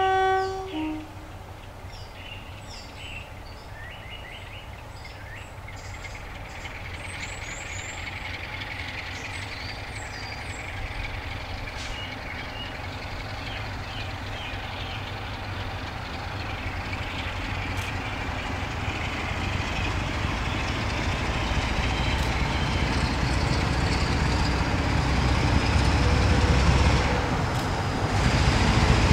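Class 47 diesel locomotive's Sulzer 12-cylinder engine working hard under power as it approaches, growing steadily louder, with a high whine slowly rising over the second half. It opens with the tail of a two-tone horn, and birds chirp over the first several seconds.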